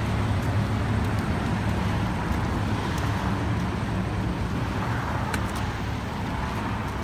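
A fire engine's diesel engine idling with a steady low rumble.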